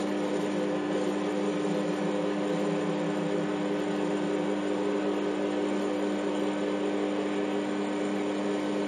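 Lathe-mill combination machine running steadily, its motor and gear train humming with a few fixed tones, while a twist drill bores into a spinning POM plastic blank.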